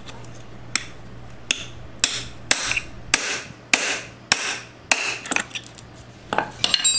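Hammer striking a steel chisel wedged under the ball bearing on a BMW K1200RS final drive ring gear: about a dozen sharp metallic blows, roughly every half second, each ringing briefly. The blows are driving the interference-fit bearing, which failed at its cage, up off its seat.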